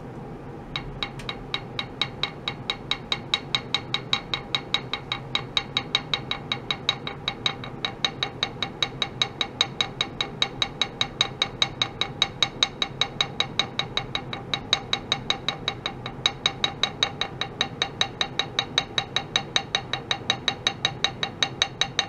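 Small wooden hammer tapping a metal plate with an ultrasonic transducer mounted on it, quickly and evenly at about four taps a second. Each tap gives a short clink with a brief metallic ring, over a steady background hum.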